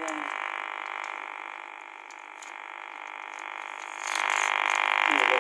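Audio output of a handheld high-frequency (RF) meter: a steady electronic buzzing hiss made from the microwave mobile-network signal it is picking up, its loudness following the strength of that signal. It grows clearly louder about four seconds in.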